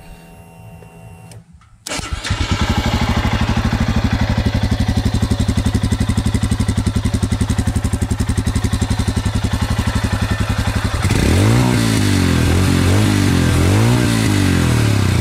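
Royal Enfield Himalayan BS6's 411cc air-cooled single-cylinder engine starting about two seconds in, idling with even exhaust pulses, then revved in a few quick blips near the end.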